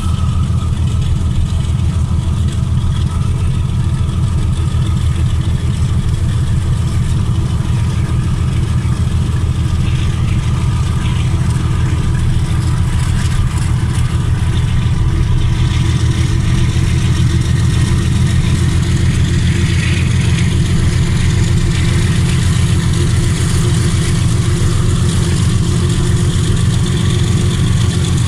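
Diesel locomotive engine running, a steady low rumble with a fast, even beat.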